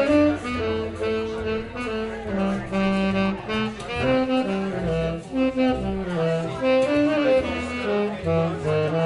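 Saxophone playing a jazz melody in a run of held and stepping notes, over a backing track with a bass line coming through the PA speaker.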